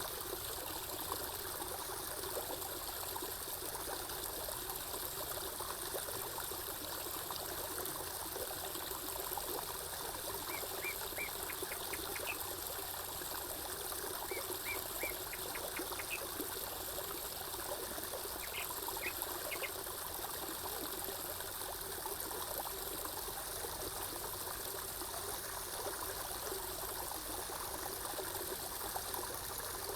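Water trickling and flowing steadily, like a small stream or spa fountain. In the middle come three short runs of quick, high chirps.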